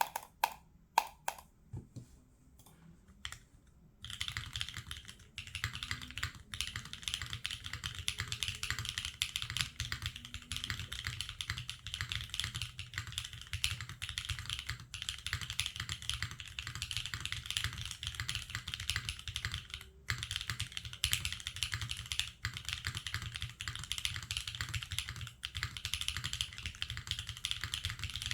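Typing on a Neo60 Core mechanical keyboard with Gateron Smoothie switches, an aluminium plate, O-ring mount, no foam and GMK Striker R2 keycaps, giving a clacky sound. A handful of separate key presses first, then continuous fast typing from about four seconds in, with a short pause about two-thirds of the way through.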